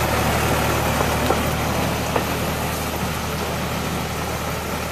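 Railroad tie inserter's engine running steadily as the machine travels along the track, slowly getting quieter, with a few light knocks about one and two seconds in.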